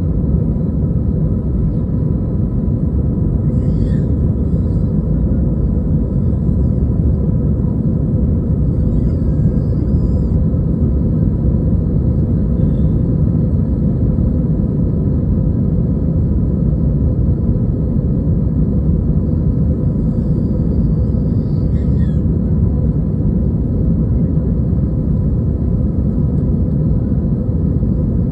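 Airbus A320 jet engines running steadily during takeoff: a loud, even rumble with a few steady whine tones on top.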